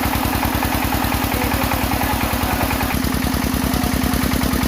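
Engine of a soil-testing drilling rig running steadily with a rapid, even beat; its note shifts slightly about three seconds in.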